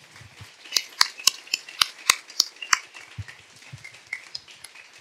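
Scattered applause from a small audience, individual claps standing out, thinning out over the last couple of seconds.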